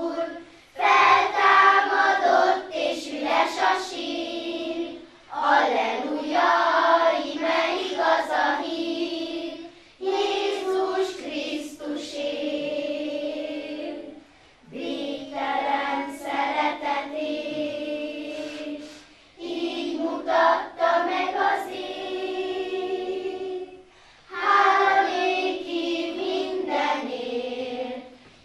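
Girls' children's choir singing, in phrases of about four to five seconds, each ending in a short breath pause.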